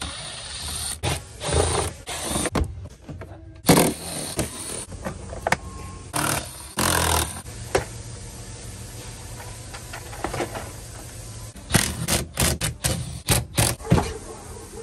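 Plastic interior door trim of a Ford F-350 being pried and pulled off: scraping and rustling handling noise, with a quick run of sharp clicks and snaps near the end as the retaining clips let go.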